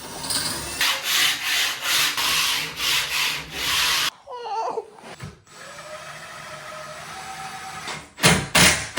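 Rhythmic back-and-forth strokes of a hand tool working a wooden cabinet filler strip, about five strokes over the first four seconds. After a pause, quicker, louder strokes start near the end.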